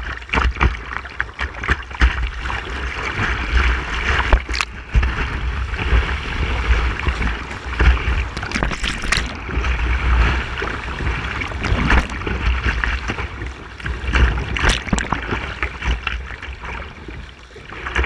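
Whitewater rapids rushing and splashing around a kayak, heard up close from the bow. A steady roar carries many sharp splashes and paddle strokes, over a low rumble of water buffeting the boat.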